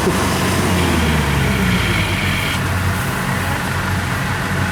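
Heavy farm diesel engines running steadily under load as a combine harvester tries to haul a grain-laden tractor out of deep mud. A higher whine joins in for about two seconds near the start.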